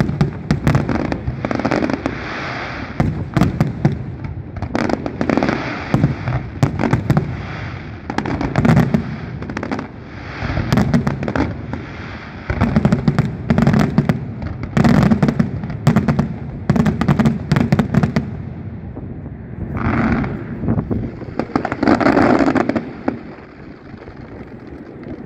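Fireworks finale: aerial shells bursting in rapid, dense barrages of booms and crackle. The barrages thin to two last swells of noise about twenty seconds in, then die away.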